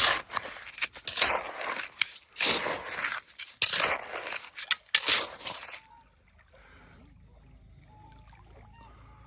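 Wet sand and water being dug and scooped, a quick run of about a dozen scraping, splashing strokes that stops about six seconds in.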